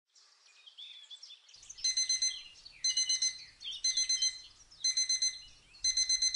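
Mobile phone alarm beeping in quick groups of high electronic beeps, about one group a second, the last group running longer. Birds chirp faintly behind it.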